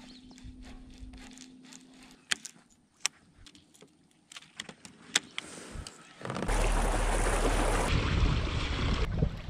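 A few sharp clicks and small knocks from handling a baitcasting reel and a glide bait. About six seconds in a loud, steady rush of wind buffeting the microphone and water rushing past the hull begins as the pedal-drive kayak moves off.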